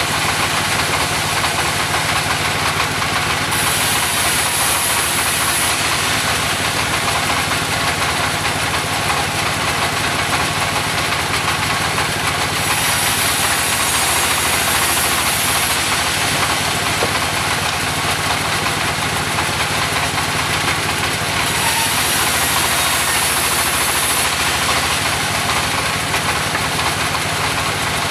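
Engine of a mobile sawmill running steadily. A higher hiss rises three times over it, each spell lasting a few seconds.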